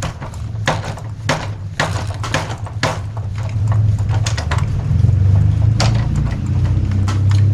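Metal tool clicks and clinks as a wrench works the rear axle nuts and chain tensioner of a Gazelle Dutch bicycle. The sharp clicks come irregularly, several a second at times, over a steady low hum that grows louder about halfway through.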